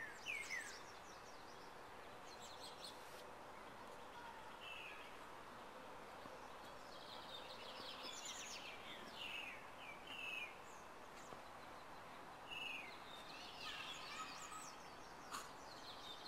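Small birds chirping outdoors: a quick run of short falling notes at the start, then scattered chirps over a faint steady background hiss.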